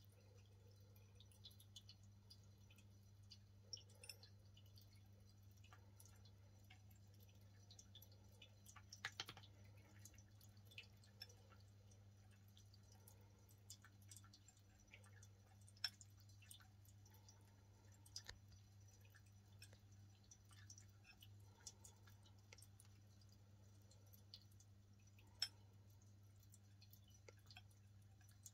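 Cat eating dry kibble from a glass bowl: sparse, faint crunches and clicks, a few at a time, over a low steady hum.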